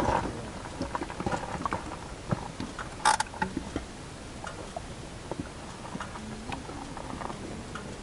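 Scattered crunches, rustles and small clicks of a rider moving about beside a parked motorcycle on loose gravel, with one sharp clack about three seconds in.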